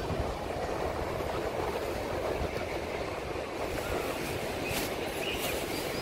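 Wind buffeting a phone microphone with a steady low rumble, over the wash of distant surf.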